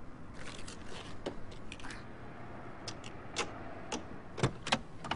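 A string of irregular sharp clicks and knocks, more than a dozen, the loudest pair about four and a half seconds in.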